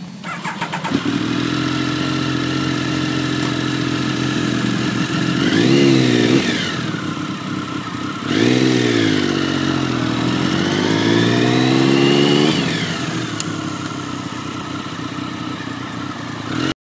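2007 Triumph Speed Triple 1050's three-cylinder engine, running steadily at first, then revving up and down several times as the bike pulls away and accelerates through the gears. It settles to a steadier, lower note near the end and then cuts off suddenly.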